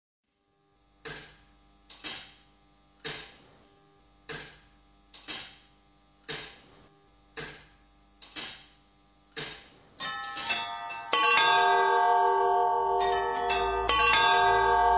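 Bell-like chimes in intro music: about nine single strikes, roughly one a second, each ringing and dying away, then from about ten seconds in a loud, sustained chord of bell-like tones.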